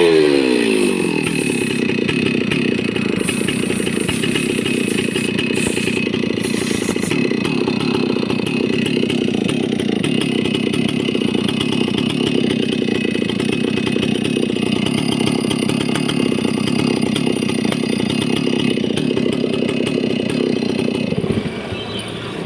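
Stihl MS660 two-stroke chainsaw engine dropping from high revs to idle at the start, then idling steadily, and switched off near the end.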